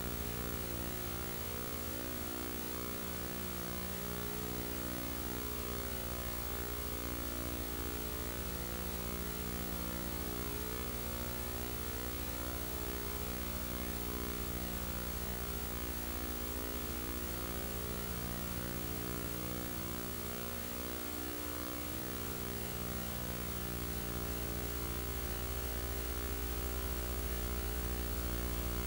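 Steady electrical mains hum with a ladder of evenly spaced overtones over constant hiss, on the soundtrack of an old video recording.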